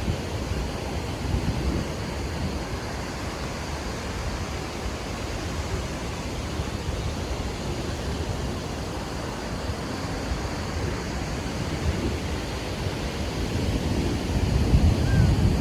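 Surf washing on the beach under a steady hiss, with wind buffeting the microphone in low rumbles that swell near the end.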